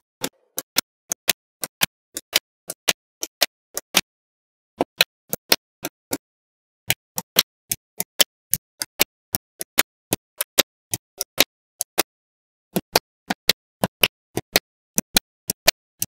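Small metal magnetic balls clicking as they snap onto one another, a steady run of sharp clicks about four a second, broken by three short pauses.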